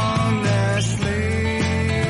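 Background music: a pop song with held melody notes over a steady beat.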